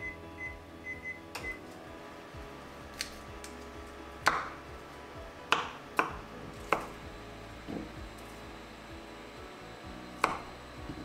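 Kitchen clatter: about five sharp, ringing knocks of utensils or dishes, the loudest about four seconds in, over soft background music. A quick run of short high beeps comes in the first second or so.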